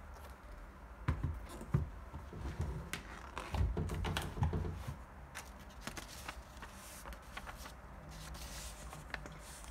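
Handling noise: soft thumps and small clicks as a sneaker is turned in the hands and put down, the loudest about three and a half to four and a half seconds in, then light rustling of a paper receipt near the end.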